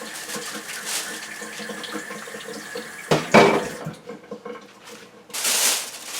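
Half a cup of water being poured into a plastic oven bag of chicken. About halfway through there is a brief, louder clatter. Near the end a brighter rustling hiss starts.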